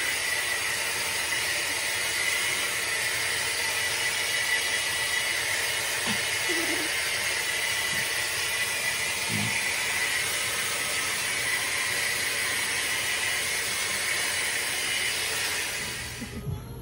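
Handheld hair dryer blowing steadily, a constant rushing hiss with a steady high whine. It cuts off about sixteen seconds in.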